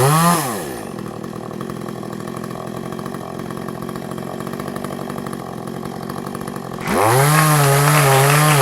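Two-stroke chainsaw at full throttle, its pitch wavering, that drops to idle about half a second in, idles steadily for about six seconds, then is throttled back up near the end, its pitch wavering again.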